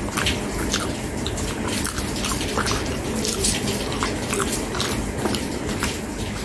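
Close-miked wet chewing and lip-smacking of spoonfuls of soft food, with many short, sharp mouth clicks.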